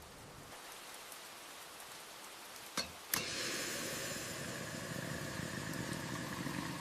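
Faint steady hiss of rain, broken by two sharp clicks about three seconds in, after which a louder steady rushing sound with a faint low hum carries on.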